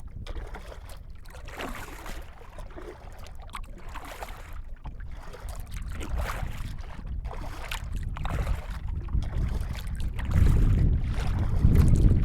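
Kayak paddle strokes dipping and swishing through the water, about one stroke a second. Wind buffets the microphone with a low rumble that grows louder near the end.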